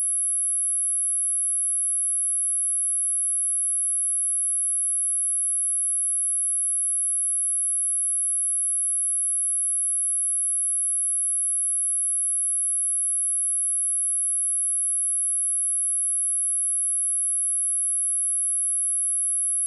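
Steady pure sine-wave test tone at 10,895 Hz, a very high-pitched unbroken whistle held at one pitch and one loudness throughout.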